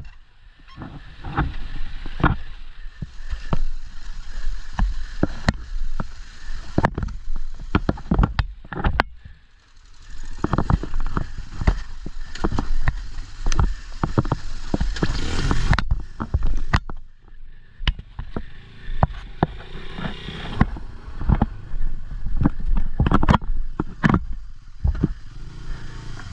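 A motorbike being worked along a rough trail: engine noise under many irregular knocks and scrapes, with short lulls about ten seconds in and again about seventeen seconds in.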